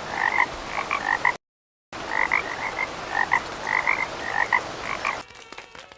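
Recorded frogs croaking in short, rapid, repeated calls over a steady hiss. The sound drops out completely for about half a second, just under a second and a half in, then the croaking resumes and stops about five seconds in.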